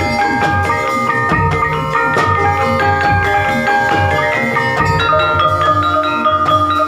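Gamelan-style ensemble playing ebeg dance accompaniment: struck metallophone notes ring over a steady drum beat.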